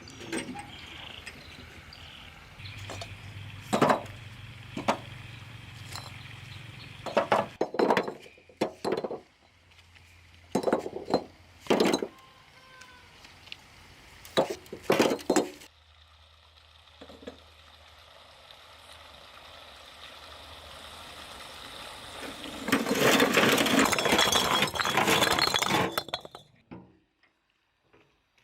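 Irregular sharp clinks and knocks of hard objects striking, then a few seconds of dense louder rattling near the end.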